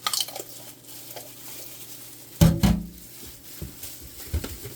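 Kitchen utensils handling as hot jerk seasoning is added to raw chicken legs: light clicks at first, one louder knock with a short ring about halfway in, and a few soft taps near the end.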